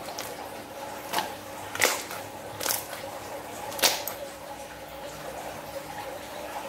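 Glossy slime squished and folded under fingers, with a few sharp wet pops and clicks as the trapped air bubbles burst, the loudest about two and four seconds in.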